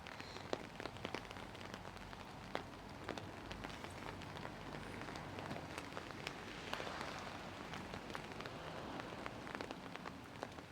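Steady rain falling, with many single drops ticking sharply on nearby surfaces.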